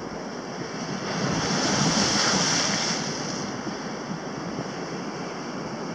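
Sea surf washing against the rocks of a jetty, one wave swelling about a second in and easing off by three and a half seconds, with wind buffeting the microphone.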